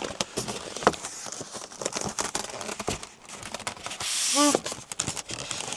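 Packaging being handled as a large tablet is lifted out of its box: crinkling and rustling of wrapping with scattered clicks and knocks. About two-thirds of the way in comes a longer hiss of sliding material, then a brief squeak.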